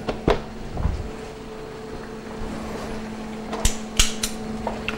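A few sharp clinks and knocks of kitchen utensils and cookware on a counter: one shortly after the start, then three in quick succession near the end, over a steady low hum.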